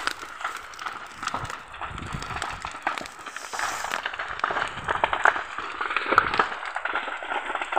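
Dense, irregular crackling and snapping of dry brush and grass, many sharp pops close together.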